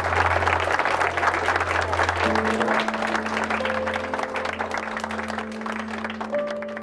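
Crowd applauding with many quick hand claps that slowly fade. Music with long held notes comes in about two seconds in.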